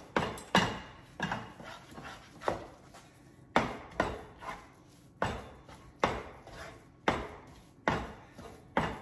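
A spatula knocking and scraping against a cooking pan while stirring sugar syrup into thick turmeric and gram-flour barfi mixture. The sharp knocks come irregularly, about one a second.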